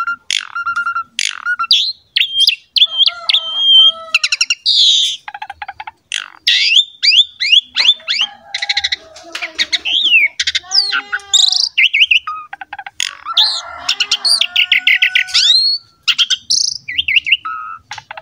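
Asian pied starling (jalak suren) in full song: a long, varied run of clear slurred whistles, rapid clicking trills and harsh chattering notes, broken by brief pauses.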